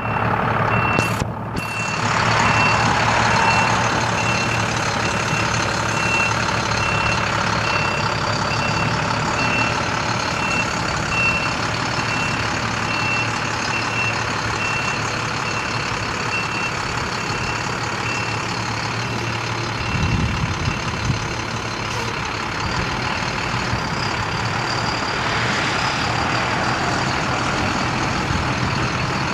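International DT466 inline-six turbo diesel running steadily, with the truck's backup alarm beeping evenly at one pitch for the first eighteen seconds or so: the truck is in reverse. A low surge in the engine comes about twenty seconds in.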